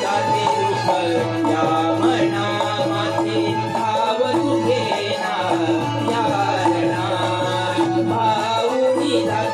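Live Marathi folk music: a melody carried over a steady hand-drum rhythm, with no breaks.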